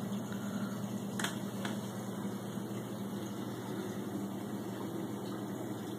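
Aquarium pump running with a steady low hum, with two faint clicks a little over a second in.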